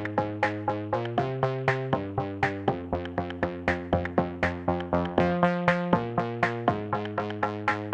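Electronic intro music: synthesizer notes on a steady quick beat, with the chord changing every second or so.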